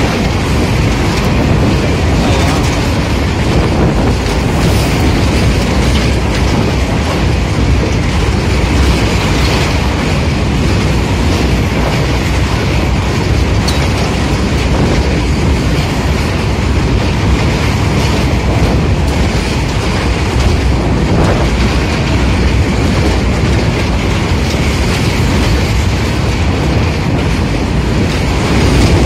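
Long freight train of covered box wagons passing close by at speed: a loud, steady rumble with the clatter of steel wheels over the rail joints.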